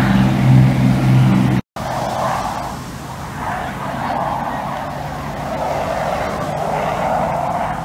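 Avro Lancaster's four Merlin piston engines droning steadily in a low pass, cut off abruptly under two seconds in. A wavering, rushing noise follows.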